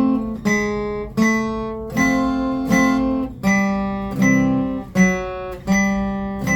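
Guitar playing a slow waltz-time melody with chords mixed in between the melody notes. Plucked notes and light strums fall about every three-quarters of a second, each ringing and fading before the next.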